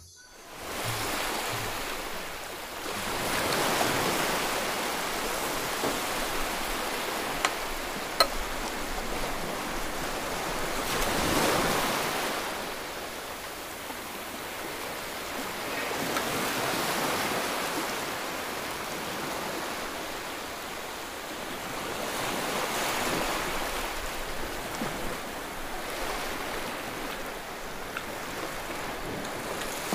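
A rushing noise that swells and fades every five or six seconds, with two sharp clicks about eight seconds in.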